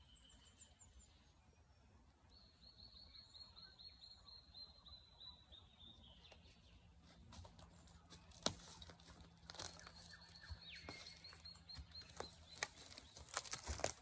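A small bird's rapid trill of quick repeated high notes, given twice, over faint outdoor quiet. From about halfway on, sharp clicks and rustling close to the microphone, the loudest single click about eight seconds in and a cluster near the end.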